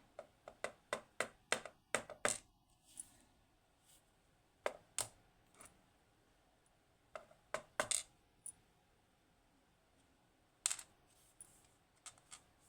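Small metal parts of a Securemme K2 dimple lock cylinder clicking and tinkling as it is taken apart. A quick run of about eight sharp clicks comes in the first two and a half seconds, then scattered clicks in pairs and singles.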